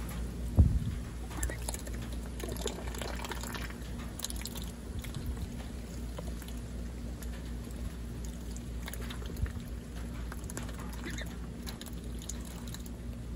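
Ducks dabbling in a shallow water tub: irregular wet slurps, splashes and drips, with one sharp knock about half a second in, over a steady low rumble.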